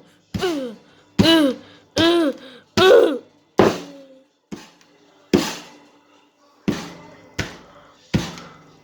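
A run of about ten hammer blows, roughly one every 0.8 seconds. Each of the first five comes with a short cry of pain; the later blows land without a cry.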